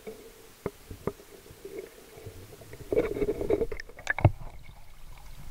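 Muffled underwater knocks from a netted crab trap, with a louder surge of rushing, sloshing water about three seconds in as the trap is pulled up, and a sharp knock soon after.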